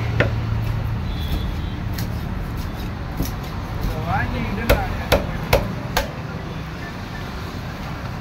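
Heavy cleaver chopping through a rohu fish into a wooden log chopping block as it is cut into steaks: sharp knocks, one just after the start and then four more about half a second apart around the middle.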